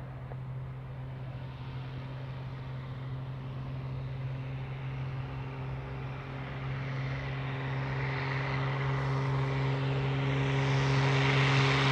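Cessna 182RG Skylane's six-cylinder engine and propeller at takeoff power during lift-off and climb-out, a steady low drone that grows steadily louder as the plane approaches. A rushing propeller hiss builds in the last few seconds.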